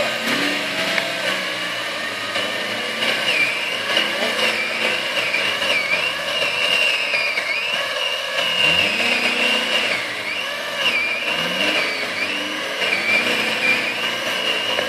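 Chainsaw running with a high, wavering whine as it works through the limb, over a lower engine note that rises in pitch a couple of times.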